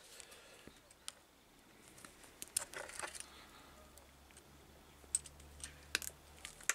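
A handful of faint, sparse metallic clicks and snips as the steel wire braid of an armoured cable is trimmed off with cutters and handled at a brass cable gland.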